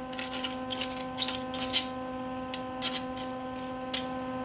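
Cut end of a chrome-plated steel tube being deburred: a quick series of short, irregular scraping strokes of metal on metal, over a steady electrical hum.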